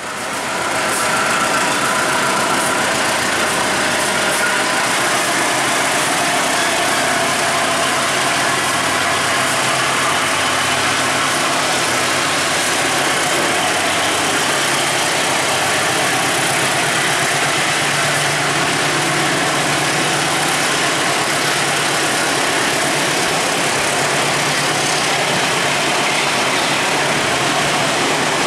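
Container freight wagons rolling past at close range: a loud, steady rumble of steel wheels on the rails that goes on unbroken.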